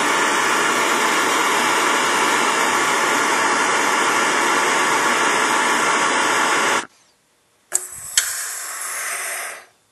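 Propane torch flame hissing steadily as it heats a small piece of hacksaw-blade spring steel, shut off about seven seconds in. After a short silence the hot steel is plunged into the quench can and sizzles for about two seconds.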